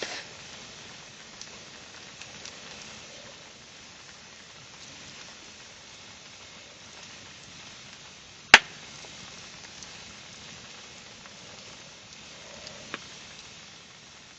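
Wood fire crackling over a steady hiss: scattered small ticks, one sharp loud pop past the middle and a smaller one near the end.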